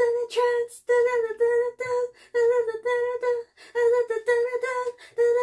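A woman humming and beatboxing a rhythmic tune: short notes on nearly the same pitch, about three a second, with mouth clicks and hisses between them.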